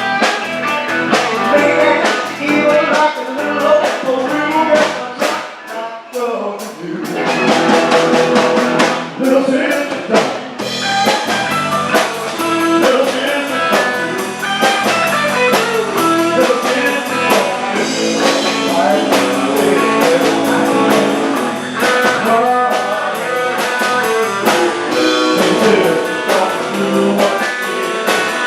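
Live rock-and-roll band playing, led by electric guitar over a drum kit, with a brief dip in loudness about six seconds in before the band comes back in full.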